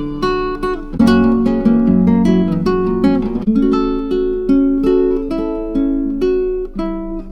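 Acoustic guitar music: plucked notes and chords at a steady pace, each note fading after it is struck.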